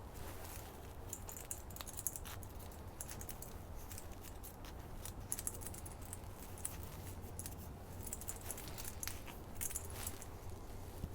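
Light metallic clinking and jingling of steel hose clamps being handled, with many small irregular clicks.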